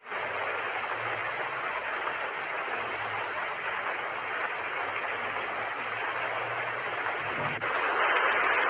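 Beas river in flood: a steady rush of churning floodwater. About seven and a half seconds in it cuts to a louder rush.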